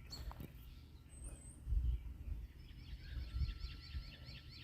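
Small birds calling outdoors: a brief high chirp about a second in, then a quick run of repeated short chirping notes in the second half. A low rumble comes and goes underneath.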